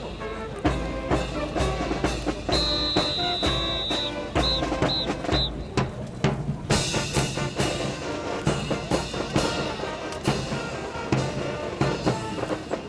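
Music with drums and brass and a steady beat. About two and a half seconds in, a high held tone sounds for a second and a half, followed by three short high blips.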